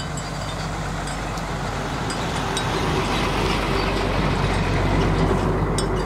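An engine running steadily with a low hum, growing louder over the first few seconds and easing slightly near the end.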